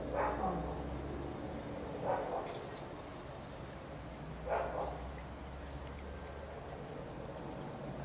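Three short barks, about two seconds apart, from a dog.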